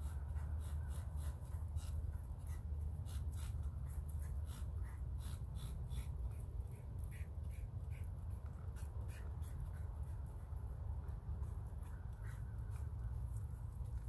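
Hand scrubbing with a brush: quick, scratchy repeated strokes, about two or three a second, thinning out in the later part, over a steady low rumble.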